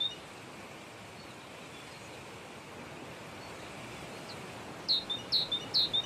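A small bird calling, a run of short, falling chirps at about three a second near the end, over a faint, steady outdoor background.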